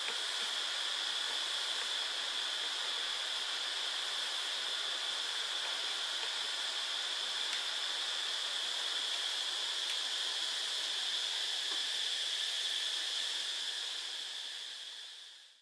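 A steady, even hiss with no distinct events, fading out near the end.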